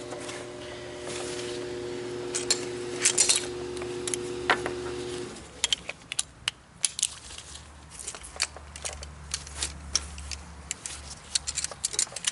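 Metal hand tools and brake hardware clinking and rattling as they are handled, in many short sharp clicks. A steady background hum stops suddenly about five seconds in.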